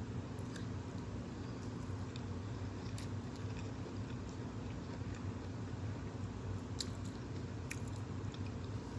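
A person chewing food with the mouth close to the microphone, soft wet chewing with a few sharp mouth clicks, over a steady low hum.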